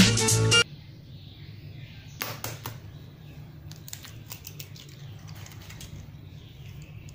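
Music that cuts off just after the start, then an egg being tapped on a stainless steel bowl and broken open: a cluster of sharp taps about two seconds in, followed by lighter clicks of shell breaking.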